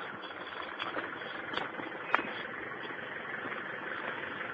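A 4x4 off-roader's engine running at low speed on a rough dirt track, a steady noise with a few faint clicks and knocks.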